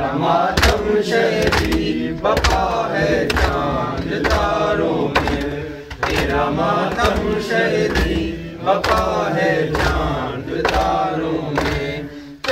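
Male voice chanting an Urdu nawha, a mourning lament for Muharram, over a steady rhythm of sharp slaps about one and a half a second: the mourners' matam chest-beating keeping time.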